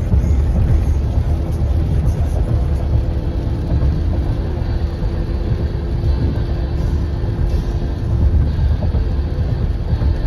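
Car road noise heard from inside the cabin while driving on a wet road: a steady low rumble with a faint hum.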